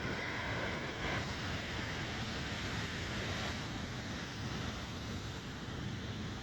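Rough, storm-driven ocean surf washing and breaking, with a louder surge of a wave in the first second or so, and wind buffeting the microphone.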